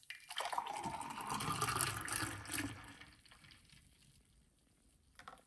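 Fresh juice pouring in a thin stream from a jug into a drinking glass, splashing and filling it for about three seconds before the stream tapers off. A small tap near the end.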